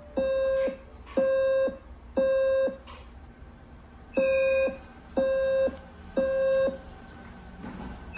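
Fire alarm panel's evacuation tone: a steady mid-pitched beep sounded in the temporal-three pattern, three half-second beeps a second apart, then a pause, twice over. The pattern is the standard signal that the fire alarm has been triggered and the building is to be evacuated.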